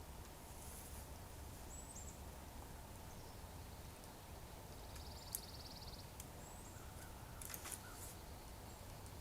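Faint birds calling over a steady low background rumble: a few short high chirps and a brief buzzy trill. A sharp click comes about five seconds in and a short crackle a couple of seconds later.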